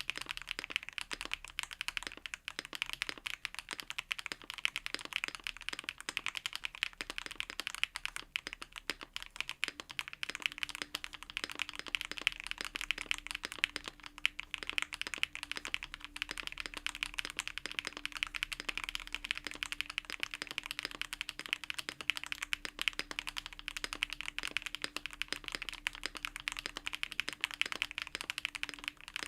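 Continuous fast typing on a custom mechanical keyboard with HMX Candy Red linear switches (Keynetix Transition Lite), a dense stream of keystroke clacks.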